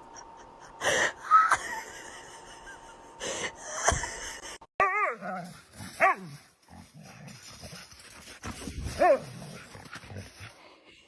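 A dog barking, yipping and whining in a string of short calls, a few of them with a wavering pitch.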